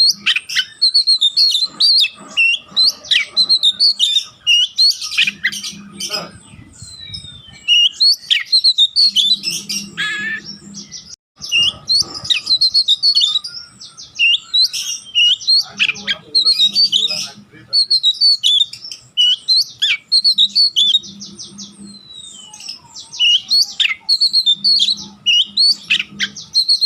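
Oriental magpie-robin (kacer) singing a fast, varied run of chirps and whistles in phrases with brief pauses.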